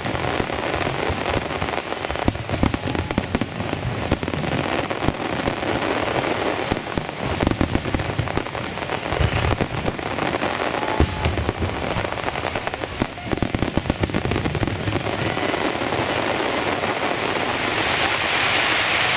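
Fireworks finale: a dense barrage of aerial shells bursting, with rapid bangs and the crackle of glittering gold stars. The bursts thin out over the last few seconds as crowd applause and cheering rise.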